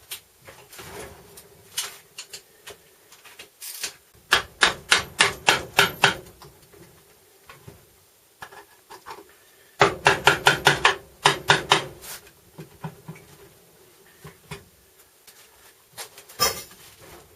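Two quick runs of hammer blows on metal during transfer-case disassembly, about four or five strikes a second, with scattered lighter knocks and taps in between.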